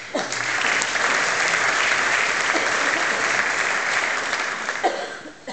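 Audience applauding, starting suddenly and dying away about five seconds in.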